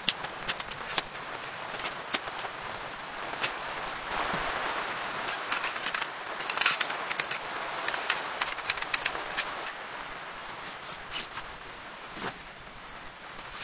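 Heavy rain falling on a tent canopy, a steady hiss, with scattered sharp clicks and knocks from gear being handled, the loudest about six to seven seconds in.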